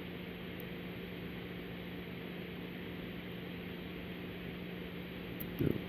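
Steady hiss with a low hum, and near the end a few faint clicks and a soft bump of a pick and tension wrench working in a Master Lock Magnum M187 padlock.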